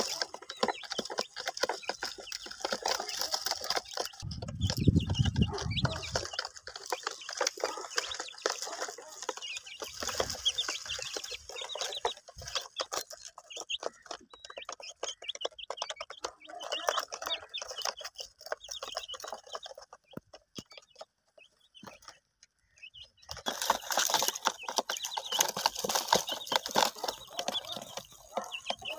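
Young chicks peeping and cheeping in a rapid, continuous string of short high calls, easing off for a couple of seconds around two-thirds of the way through. A brief low rumble about four to six seconds in.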